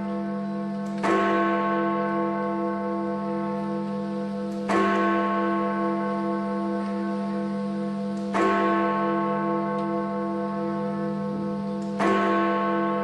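Big Ben, the Great Bell in the Elizabeth Tower, striking the 11 o'clock hour. Four single strokes come about three and a half seconds apart, each ringing on with a long hum that carries under the next.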